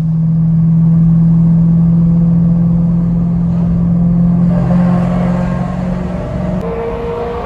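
BMW E92 M3's 4.0-litre V8 with a Bomiz aftermarket exhaust, running at steady revs with an even, unwavering note. The sound changes abruptly about six and a half seconds in, to a different, higher steady tone.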